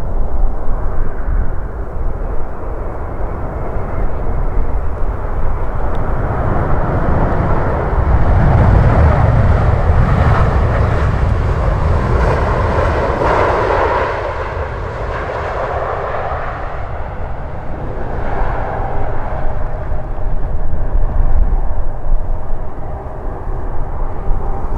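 Jet airliner's engines passing by. The noise swells to a peak about halfway through, then fades away.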